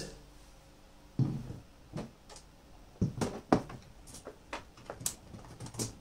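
A series of irregular knocks and clicks from a small power inverter and a heavy battery-cable lug being handled on a table as the lug is fastened to the inverter's negative terminal, the sharpest knock a little past halfway.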